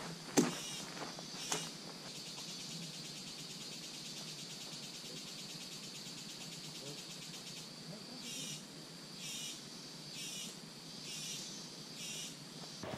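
Insects trilling steadily, a high continuous buzz, joined in the last few seconds by a pulsed call repeating about once a second. Two footsteps on a dirt trail scattered with dry leaves in the first couple of seconds.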